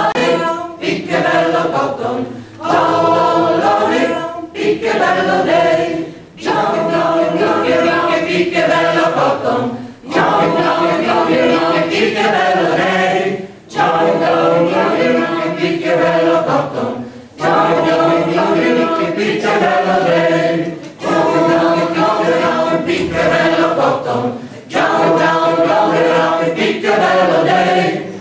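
Mixed choir of men and women singing a cappella, in phrases of about four seconds with short breaks for breath between them.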